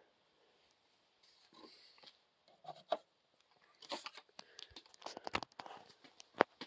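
Cardboard and wood parts of a model coal tipple being handled and lifted apart by hand: faint scrapes and rubs with scattered light clicks and taps, the loudest about four seconds in and again near the end.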